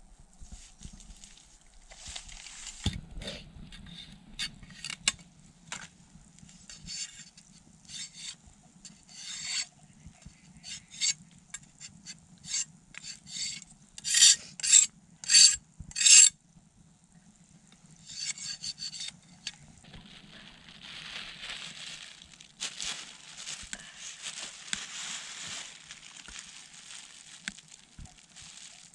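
Repeated rubbing and scraping strokes, four loud ones in quick succession about halfway through, followed by a softer continuous hiss.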